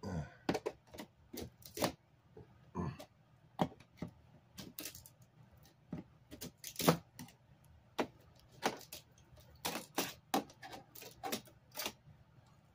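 Screwdriver prying at a flat-panel TV's metal chassis, with irregular sharp clicks and snaps, about one or two a second, as a strip circuit board is worked loose.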